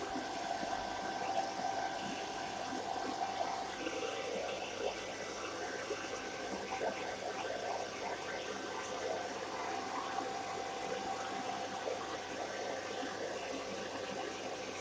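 Hairdryer blowing on its lowest heat and speed setting: a steady airy hiss with a faint steady whine.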